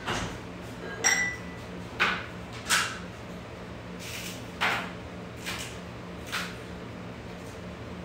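Kitchen clatter of cupboard doors and glassware: about six separate knocks and clinks, one glass clink about a second in with a short ringing tone, the loudest in the first three seconds and softer ones after.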